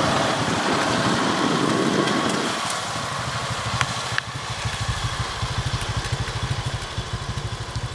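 A motor vehicle engine running. About two and a half seconds in, the louder rushing noise drops away and the engine settles into a steady, pulsing idle.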